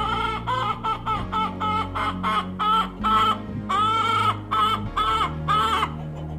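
Hen calling in a quick series of short pitched clucks, about two or three a second with one longer call midway, stopping shortly before the end: the pre-laying calls of a hen searching for a place to lay. Background music plays underneath.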